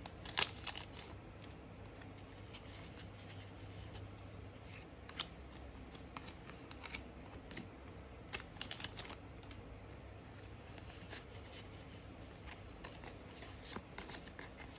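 Trading cards being handled and flipped through one by one: scattered soft flicks and rustles of card stock, with a few sharper clicks around the middle.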